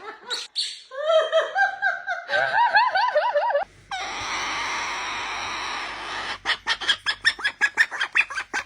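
A voice giving wavering, laughter-like 'ay-ay-ay' calls for about three and a half seconds. The sound cuts to a steady hiss, then to rapid clucking pulses, about four or five a second, from near the middle to the end.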